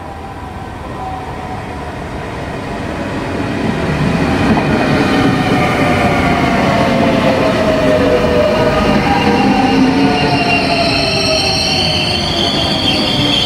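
Trenord double-deck electric suburban train pulling in alongside the platform and braking to stop, growing louder over the first few seconds. A whine falls in pitch as it slows, and a high brake squeal comes in near the end.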